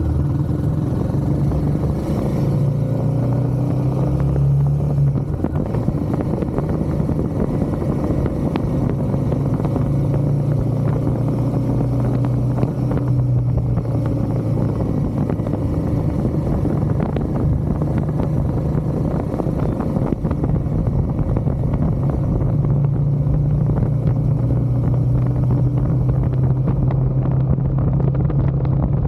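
Royal Enfield Himalayan 450's single-cylinder engine running steadily on the road, its pitch rising and falling a little with the throttle.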